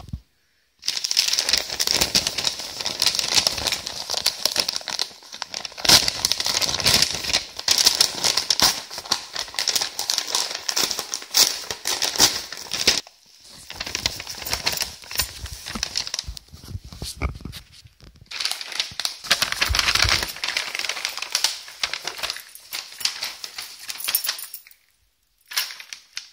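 Padded paper envelope being handled and torn open by hand: a long run of crinkling and crackling, broken by a few short pauses.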